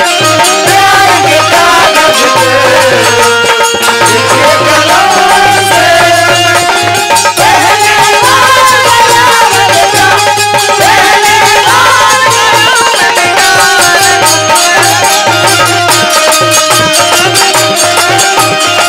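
Loud live Bhojpuri folk stage music over a PA: a gliding melody line over fast rattling percussion.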